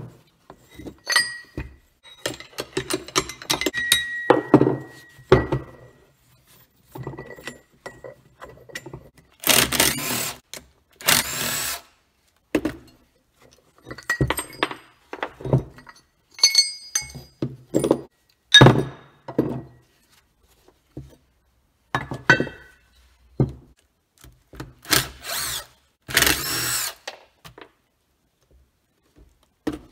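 Metal parts of a Detroit Diesel turbocharger clinking and knocking as it is taken apart. Four short bursts of a cordless drill-driver working on the turbo housing come in two pairs, about ten seconds in and near the end.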